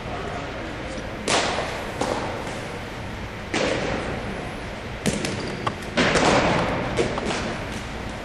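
Sharp knocks of baseballs being hit, fielded and caught during an infield fielding drill: about five separate impacts a second or more apart, each with a short echoing tail.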